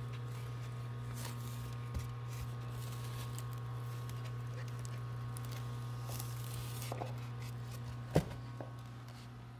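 Hands handling eggs and a plastic egg tray inside a styrofoam incubator, with a small click about two seconds in and a sharp knock just after eight seconds, over a steady low hum.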